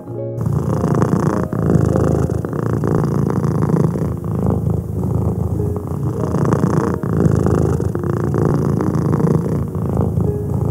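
Domestic tabby cat purring loudly and continuously, close to the microphone. The purr dips briefly every two to three seconds and breaks off for a moment at the very start.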